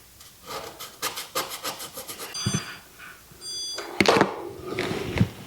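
Stud finder being slid along drywall with rapid scraping strokes, giving two short electronic beeps as it finds studs; a low knock and, about four seconds in, a sharp click followed by more scraping.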